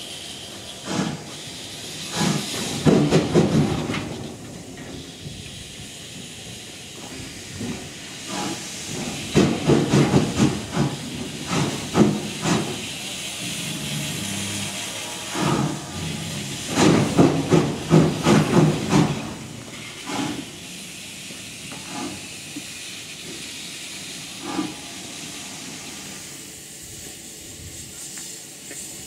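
Steam tank locomotive hissing steadily as steam escapes at the front, with loud, irregular clusters of chuffs from the chimney every few seconds.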